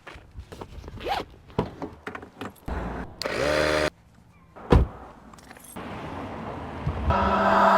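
A run of short clicks and rustling handling noises, with one sharp loud click about two-thirds of the way in, then music fading in near the end.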